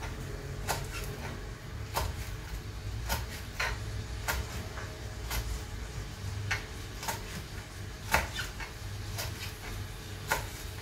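Small kitchen knife slicing fresh green beans, its blade tapping the cutting board in short, sharp, irregular strokes about once every half second to a second. A low steady hum runs underneath.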